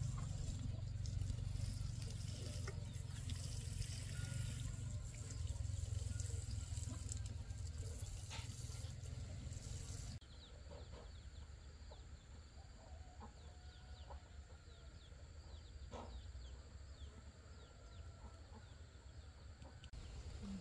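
Chickens clucking now and then, over a steady low rumble and hiss that cuts off abruptly about halfway through.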